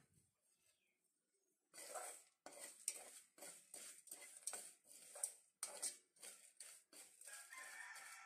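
A spoon stirring jaggery as it melts in a little water in a pan, scraping and clinking against the pan in strokes about twice a second, starting after a near-silent second and a half.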